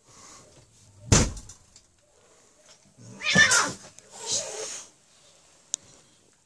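A calico cat hisses and spits at another cat that comes near its litter box. The outbursts come in three: a sharp one about a second in, the loudest and longest, with a yowling edge, about three seconds in, and a shorter one just after. It is a defensive warning to keep the other cat away.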